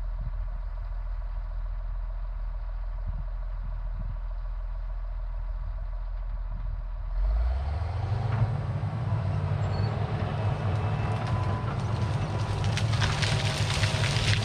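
Diesel engine of a Caterpillar 973C track loader idling low, then throttling up about seven seconds in and running harder, with a few knocks and clatter near the end as the machine gets moving.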